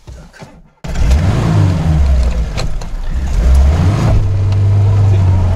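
VAZ 2121 Niva's carburetted engine, heard from inside the cabin, revving as the car gets under way. It starts abruptly about a second in, rises and falls in pitch, then settles on a steady note near the end. The Solex carburettor and ignition have just been set up.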